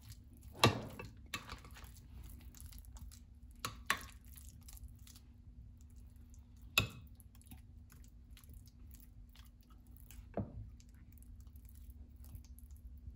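A metal fork spreading mashed beans in a glass baking dish: quiet scraping with a handful of sharp clinks of the fork against the glass, the loudest about half a second in.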